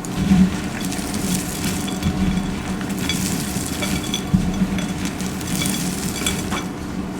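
Dry soap crunching under pressure: a dense run of small crackles with a few louder cracks, one just after the start and one about four seconds in.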